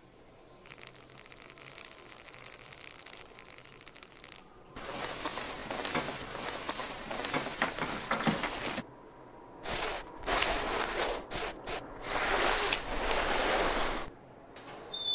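Sound effects for clothes going on in stop motion: bursts of noise with no pitch. A long stretch of noise grows louder about five seconds in, then four or five short bursts start and stop abruptly.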